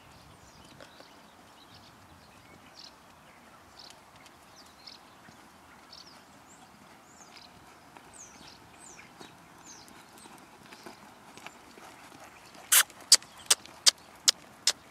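A horse's hoofbeats on a sand arena, faint and distant at first, then about six loud, sharp, evenly spaced hoof strikes near the end as the trotting horse passes close by. Faint bird chirps in the background.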